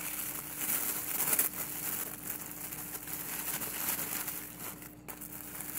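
Crinkly yellow packaging wrap being handled and pulled open by hand: irregular rustling and crackling, with a brief lull about five seconds in.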